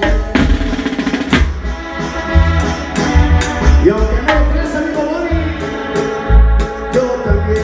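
Live Tierra Caliente band music: a drum kit keeps a steady beat, with sharp cymbal strokes two to three times a second over a bass line and sustained pitched instruments.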